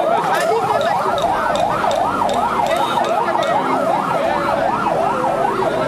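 Police siren yelping, its pitch rising and falling quickly about three to four times a second.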